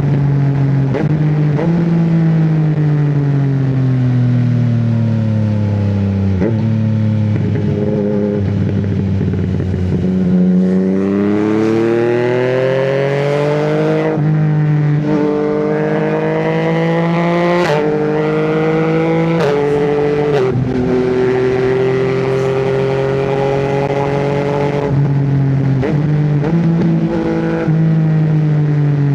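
Yamaha MT-09's three-cylinder engine under way, first slowing with falling revs, then accelerating hard in rising sweeps that each drop sharply in pitch as the quickshifter snaps through an upshift, four times in quick succession. The revs fall away again near the end.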